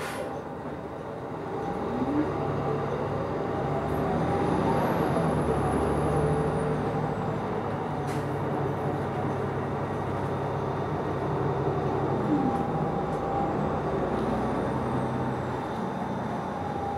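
Nova Bus LFS city bus heard from inside the cabin, its engine and drivetrain note rising as it pulls away about a second and a half in, then running steadily. The pitch dips around twelve seconds in and climbs again near the end, with a sharp click about eight seconds in.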